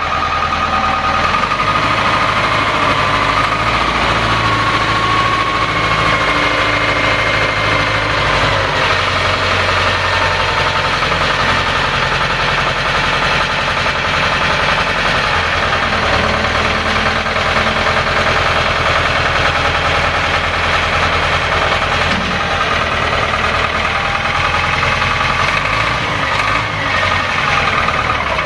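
1985 Caterpillar 910 wheel loader's 65-hp diesel engine running steadily while the loader is driven and its bucket raised and lowered.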